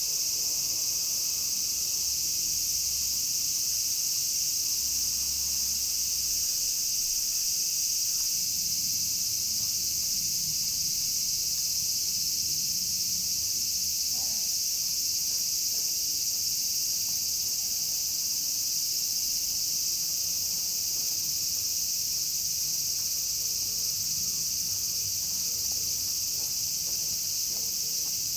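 Chorus of insects, crickets or cicadas, a steady high-pitched drone with no breaks.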